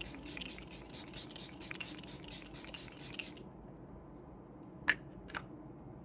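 Pump setting-spray bottle misting the face in quick repeated sprays, about four or five a second, stopping about three and a half seconds in. Two faint short ticks follow near the end.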